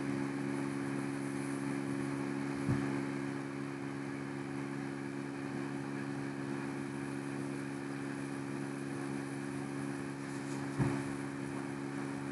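Steady low hum of background noise, with two brief faint knocks, one early and one near the end.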